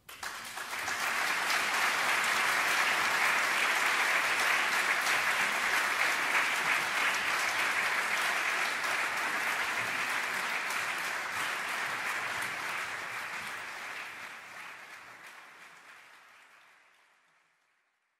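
Audience applauding at the end of a solo piano piece: dense clapping that swells within the first second, holds steady, then fades away over the last few seconds.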